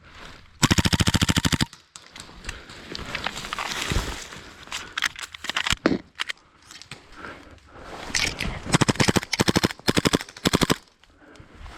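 Airsoft guns firing in rapid full-auto bursts, about twenty shots a second: one burst of about a second near the start, then a longer run of bursts in the last few seconds.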